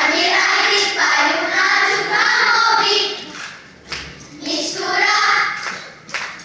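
Children's choir singing together in two sung phrases, with a short break a little past halfway.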